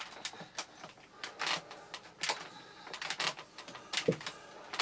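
Handling of the Vax Mach Air vacuum's mains cable as it is wound onto the cleaner's plastic cable hooks: a string of irregular clicks and knocks, with the cable rubbing on the plastic.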